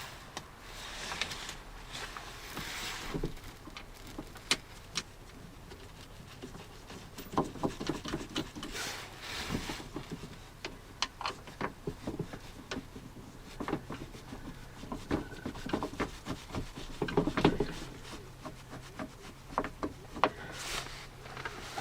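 Irregular small clicks, light knocks and rubbing from hand work on a car door's lock mechanism, with parts and tools being handled.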